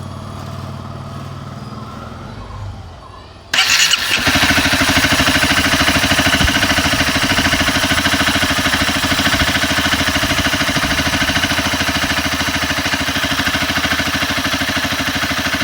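Honda CBR250R single-cylinder engine starting up about three and a half seconds in, then idling steadily with a rapid, even beat, just after its timing chain tensioner has been tightened to cure a loose-chain rattle.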